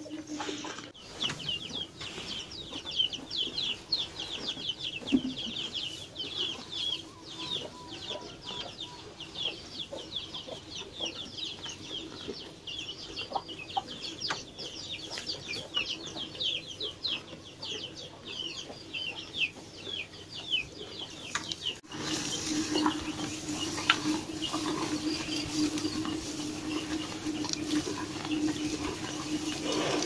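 Birds chirping rapidly and continuously, short high falling chirps, over a steady low hum, with scattered rustling and chewing from cattle feeding on hay. About two-thirds of the way through, the sound changes abruptly: the hum and a hiss grow louder and the chirping thins out.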